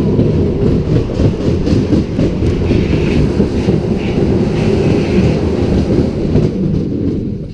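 Doggy Dog's Zinnecker roller coaster train rolling and clattering along its steel track, heard from a seat on the train, with a faint higher squeal for a few seconds midway. It runs into the station near the end, and the sound fades out at the very end.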